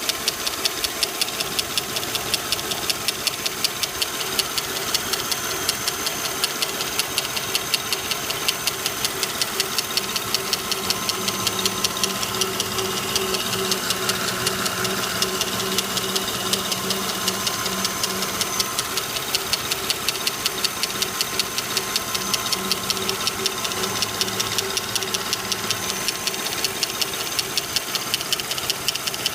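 Lincoln Town Car's 4.6-litre V8 idling with a rapid, even ticking rattle, which the owner suspects comes from a valve lifter.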